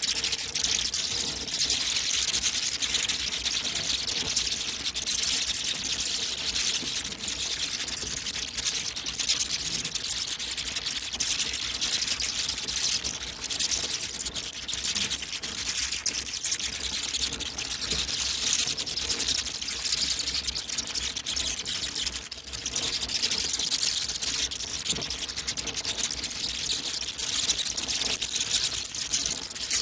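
Many bats squeaking and chittering at once: a dense, unbroken high-pitched chatter of rapid squeaks and clicks.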